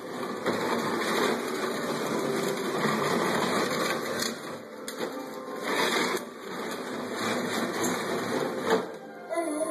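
Plastic toy doll cradle being pushed across the floor, its rockers scraping and rattling in uneven stretches.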